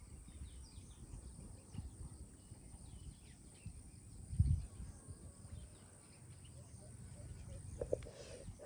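Quiet outdoor ambience: a low rumble with faint bird chirps, and one thump about four and a half seconds in.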